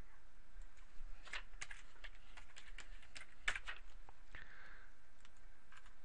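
Typing on a computer keyboard: a quick run of keystrokes entering a short word, clustered between about one and four seconds in, with a few separate mouse clicks before and after.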